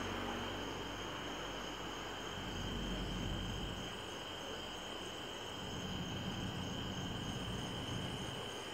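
Steady evening chorus of crickets, a continuous high trill, with the low rumble of a passing car fading away over the first few seconds.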